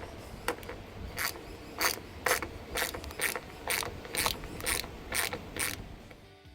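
Ratchet wrench with a 12mm socket undoing a roof-rail bolt, the pawl clicking in a short rasp on each back-swing, about two strokes a second. The strokes stop about a second before the end.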